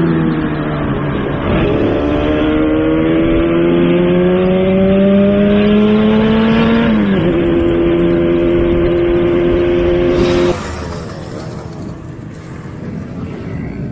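Two-stroke motorcycle engine under way, its note climbing steadily as it accelerates, dropping sharply at a gear change about seven seconds in, then holding steady. About three seconds before the end the engine sound cuts off abruptly, leaving a much quieter, even noise.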